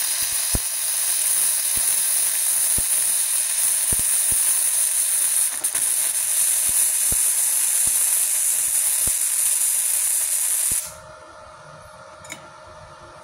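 Gasless flux-core MIG welding arc from a Multipro MIG-MMA/TIG 160 inverter welder: a steady hiss with scattered pops, which cuts off about eleven seconds in. The torch is on negative and the work clamp on positive, the correct polarity for gasless wire.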